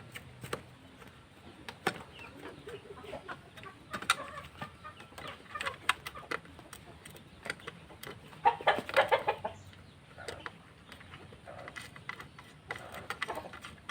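Scattered clicks and taps of hand work on a motorcycle's horn mounting, with a louder bout of rapid, pulsing sounds about eight and a half seconds in.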